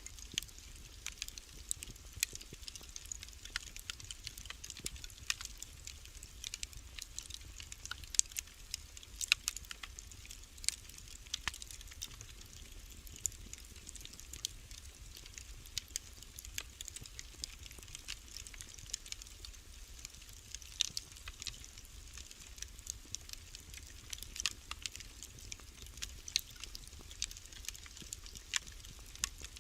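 Wood fire burning in a fireplace, crackling: a continuous scatter of irregular sharp pops and snaps, some much louder than others, over a low steady rumble.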